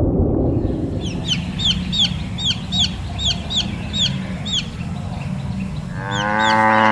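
A young bird peeping: a quick run of short, high, falling notes, about three a second, over a low rumble. Near the end a cow begins a loud moo.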